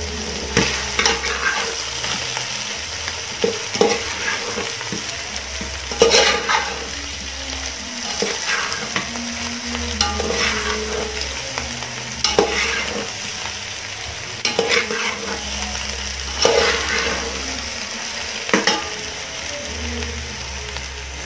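Potato slices and onions frying with a steady sizzle in a metal pot, while a spatula turns them slowly and scrapes and knocks against the pot every second or two.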